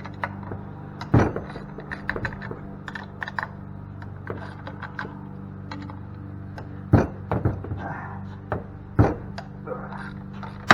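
Hand tools and metal parts clicking and clanking as a cast-aluminum pump is taken apart, with three louder knocks about a second in, about seven seconds in and near the end, over a steady low hum.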